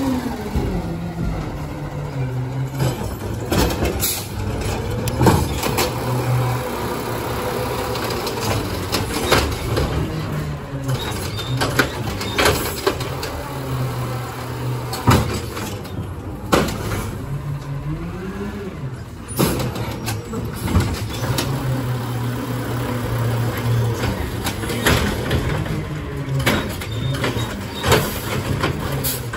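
Natural-gas engine of a Peterbilt 520 automated side-loader garbage truck running and revving up and down as its hydraulic arm grabs, lifts and dumps a recycling cart, with repeated metallic clanks and bangs from the arm and the cart at the hopper.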